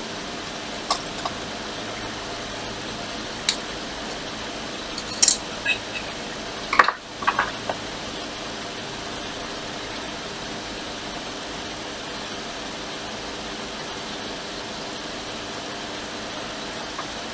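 A few short metallic clicks and clinks of small tools handled on a workbench, bunched in the first half, over a steady fan-like hum.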